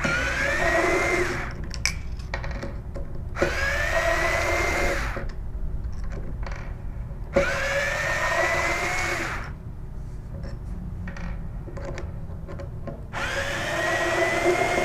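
Small power screwdriver backing out the four outside fasteners of a diaphragm pump's valve assembly: four separate runs of the motor, each a whine that rises in pitch, with small clicks between them.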